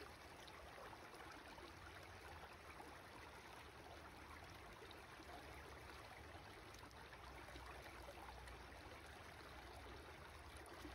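Near silence: a faint, steady rushing hiss with no distinct events.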